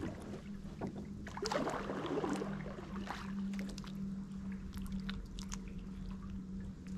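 Kayak paddle strokes dipping into calm river water, with small splashes and drips off the blade, most splashy about one and a half to two and a half seconds in. A steady low hum runs underneath.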